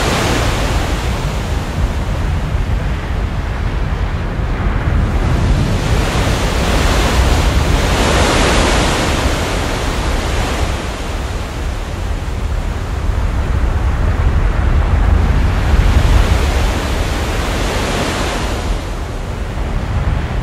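Rough sea: a loud, continuous rush of breaking waves and wind, swelling about eight seconds in and again near the end.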